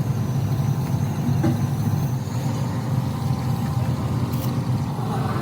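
A large engine running steadily with an even, low drone.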